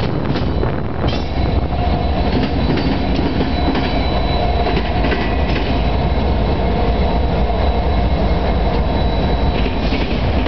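Norfolk Southern and Union Pacific diesel locomotives running past close by at the head of a freight train: a steady, loud engine rumble with a thin high whine over it.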